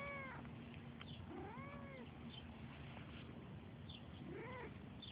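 Ragdoll cat meowing three times, each call rising and then falling in pitch.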